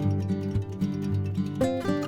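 Background music: acoustic guitar playing a plucked and strummed melody.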